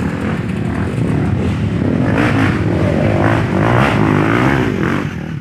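Trail dirt bike engine revving up and down on a dirt track, its pitch rising and falling repeatedly in the middle of the stretch and easing off near the end.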